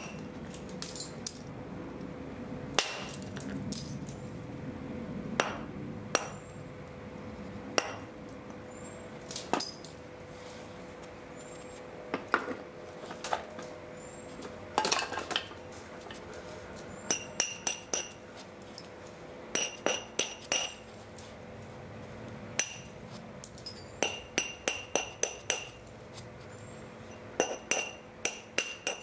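Flint being knapped: sharp clicking strikes of a knapping tool on the stone, single blows a second or two apart and, later, short runs of quick taps, several with a brief high ring.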